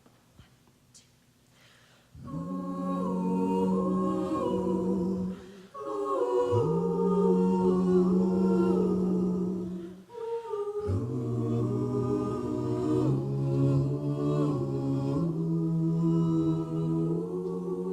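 An a cappella vocal group sings in close harmony. After about two seconds of quiet, the voices come in with held chords over a low bass note, in three long phrases with short breaths between them.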